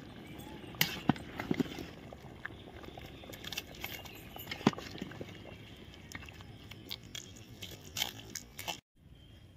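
Scattered knocks and clinks of cooking utensils at the curry pot, a few sharp ones about a second in and one near the middle, over a faint steady background.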